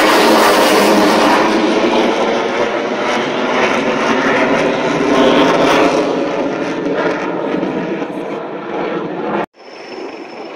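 Loud jet roar of a Saab JAS 39 Gripen fighter's single turbofan engine as it passes low overhead, slowly fading as the jet climbs away. An abrupt cut near the end leaves a quieter Mi-24 helicopter.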